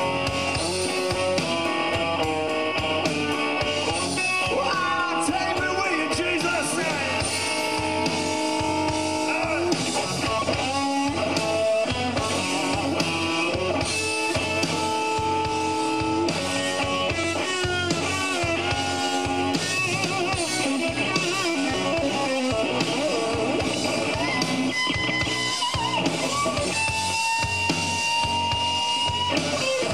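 Live blues-rock band playing an instrumental break: an electric guitar lead with bent and long-held notes over bass and drum kit, one note held for a few seconds near the end.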